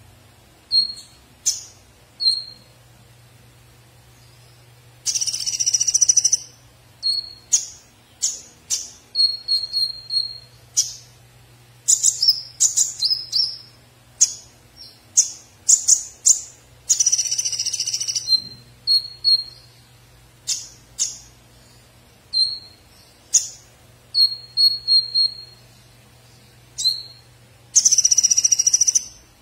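Male Van Hasselt's sunbird (kolibri ninja) singing: repeated sharp, high chirps and short whistled notes, broken by rapid high trills about a second and a half long at about five seconds in, about seventeen seconds in, and near the end.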